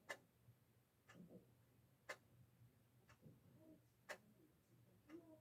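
Near silence with faint, regular ticking of a clock, about one tick a second, every other tick louder.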